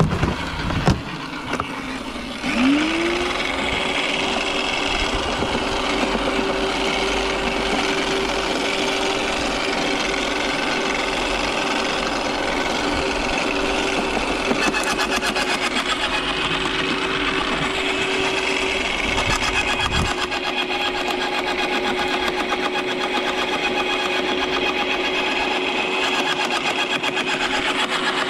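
Electric garden shredder starting up about two and a half seconds in, a few knocks after the start, its motor whining up to speed and then running steadily as conifer branches are fed in and shredded.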